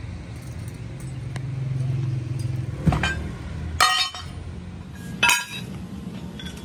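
Cut steel plate pieces being dropped onto a pile of steel offcuts, three sharp metallic clanks with a ringing tail, over a low hum.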